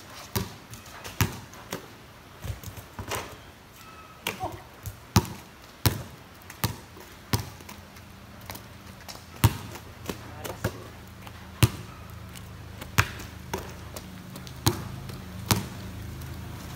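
Basketball dribbled on a wet concrete court: a run of sharp bounces, at times regular about every 0.7 seconds, at times broken and irregular as play moves. A faint low steady hum comes in about halfway through.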